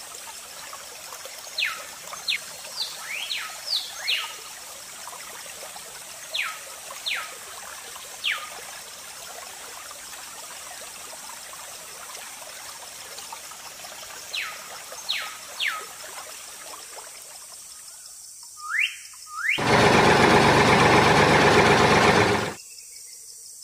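Bird chirps, each a quick falling whistle, coming in small groups over a steady high hiss of insects. Shortly before the end a loud rushing noise lasts about three seconds and then cuts off.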